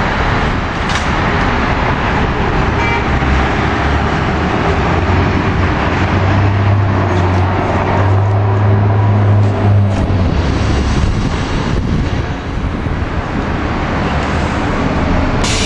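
City transit bus diesel engine running, a deep drone that swells for a few seconds in the middle, over traffic noise.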